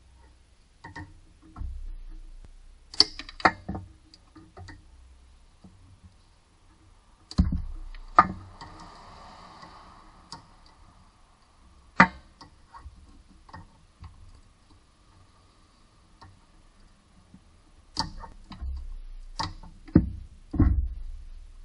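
A hand tool clicking and knocking against metal while working on bolts at the engine's belt pulleys: irregular sharp clicks, some in quick clusters, with a brief rustle about nine seconds in.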